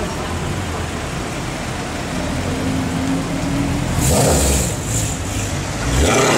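Mercedes-Benz C63 AMG Black Series 6.2-litre V8 through an aftermarket MHP exhaust, rumbling as the car creeps past at walking pace. Two short, louder throttle blips come about four and six seconds in.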